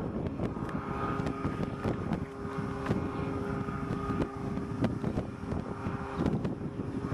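Small engine of a powered parachute droning steadily in flight, with gusty wind buffeting the microphone.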